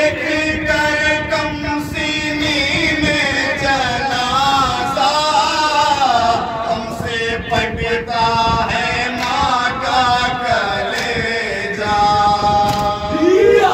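Two male reciters chant a nauha, an Urdu Muharram lament, unaccompanied into a microphone, in long wavering held notes. The voice swells into a loud rising cry near the end.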